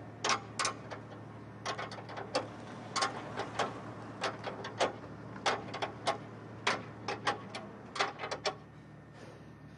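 Sharp metallic clicks and taps at uneven intervals, a few a second, from a hand wrench working on the mounting bolts of a car's front bumper from underneath.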